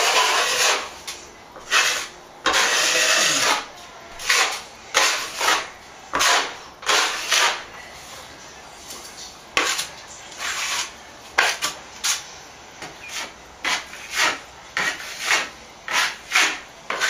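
A wide steel plastering knife scraping across a ceiling as a thin coat of plaster is spread and feathered out at the edges, in repeated short, irregular strokes.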